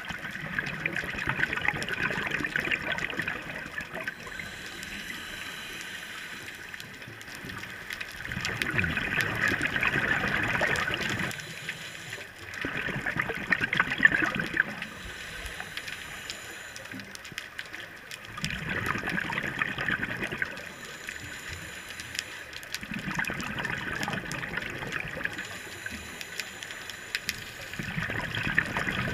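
Scuba diver breathing through a regulator underwater: about six bursts of exhaled bubbles gurgling out, each lasting two to three seconds, about every five seconds, with quieter stretches between.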